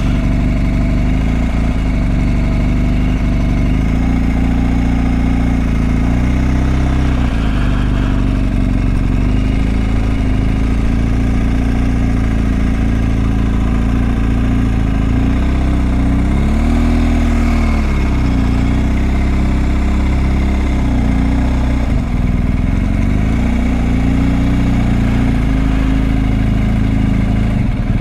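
BMW GS Adventure motorcycle engine running steadily on the move, its note rising and falling a few times around the middle as the speed changes.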